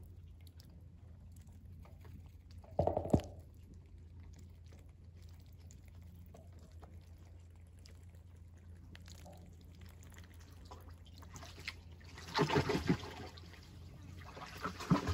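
Welsh Harlequin ducklings paddling and splashing in a shallow tub of water: mostly quiet, with a short splash about three seconds in and a longer burst of splashing near the end, over a faint steady low hum.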